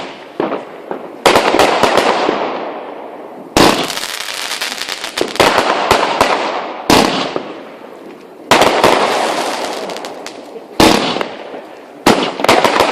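Fireworks going off: a sharp bang every two to three seconds, about six in all, each followed by a long crackling, fizzing tail that fades away.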